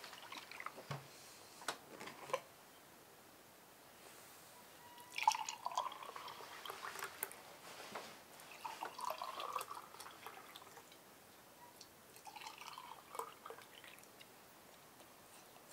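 Red juice poured from a glass bottle into drinking glasses, three separate gurgling pours into three glasses, one after another. A few light knocks come before the pouring starts.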